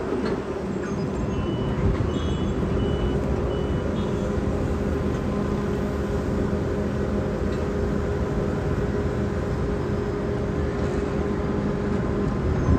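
Diesel engine of heavy construction machinery running steadily, a low hum that holds the same pitch throughout.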